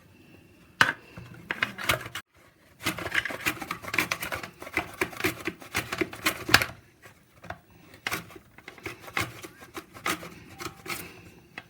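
Raw plantain being sliced into thin rounds: a run of quick scraping, rasping strokes with sharp clicks, densest in the middle and sparser near the end.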